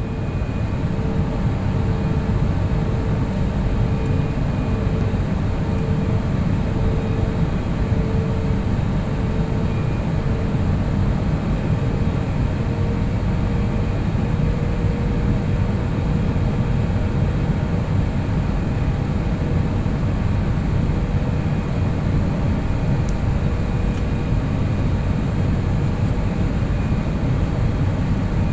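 Steady roar of a jet airliner's engines and rushing air, heard from inside the passenger cabin. A faint pulsing hum runs through the first half and fades out about halfway.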